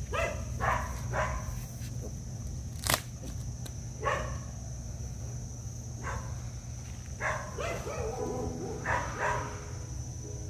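A dog barking in short, scattered barks, with a sharp click about three seconds in.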